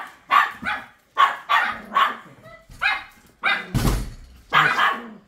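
Two Pomeranians barking over and over in quick, excited runs, alert barking at an arriving visitor; a heavy thump lands about four seconds in.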